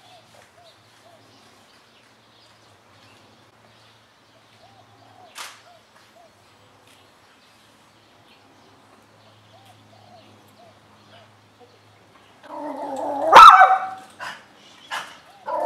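A pit bull barking. After a long faint stretch, a loud drawn-out bark lasting about a second comes near the end, followed by a sharp bark and a few shorter ones.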